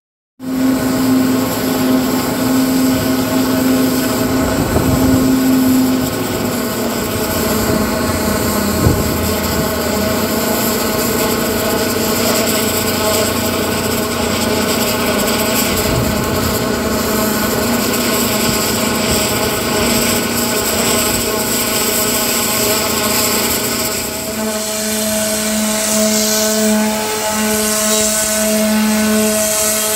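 High-pressure water blasting on a steel ship deck to strip rust: the jet hisses and sprays steadily over the steady hum of the blasting pump's engine. The hum changes pitch a little near the end.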